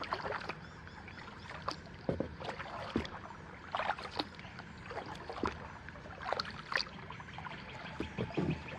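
Kayak paddle strokes in calm water: irregular splashes and drips as the blades dip and lift, with water trickling off the paddle between strokes.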